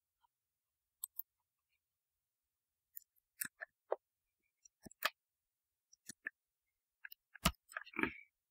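Faint computer mouse clicks: about a dozen short, sharp clicks in loose clusters, the loudest near the end.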